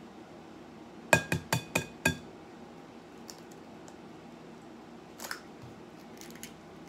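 An egg rapped five times in quick succession against the rim of a glass mixing bowl, each tap with a brief glassy ring. A few seconds later comes a soft crackle as the shell is split open.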